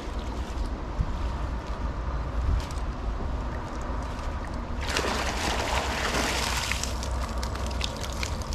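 Wind buffeting the microphone as a steady low rumble, with a louder rushing, hiss-like burst lasting about two seconds from roughly five seconds in.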